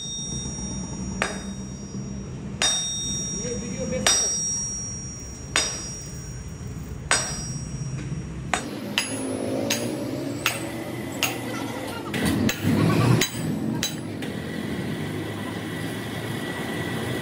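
Hammer blows on metal, six evenly spaced strokes about a second and a half apart, each with a short metallic ring. Then come lighter, irregular knocks and clinks, and in the last few seconds a steady high whine.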